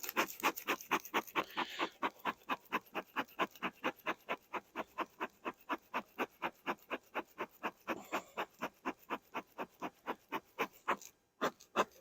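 Rapid, even panting, about four to five breaths a second, kept up steadily throughout.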